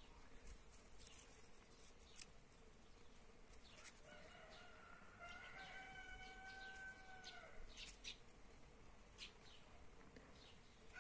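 A faint rooster crowing once: a single drawn-out call starting about four seconds in and lasting some three seconds, over near-silent background.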